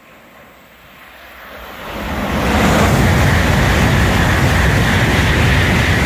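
N700A Shinkansen train passing at high speed: a rush of noise that builds over about two seconds as it approaches, then holds loud and steady with a high hiss over the rumble as the train runs by.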